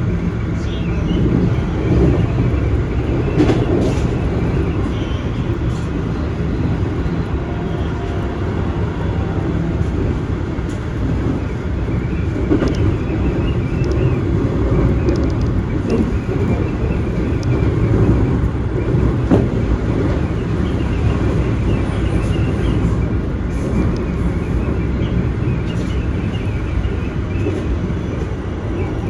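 Keikyu Main Line commuter train running on the rails: a steady low rumble with occasional sharp clicks.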